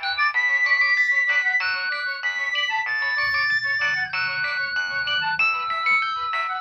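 Nokia 6100 mobile phone ringtone playing: a quick electronic melody of short, crisp notes with several notes sounding at once.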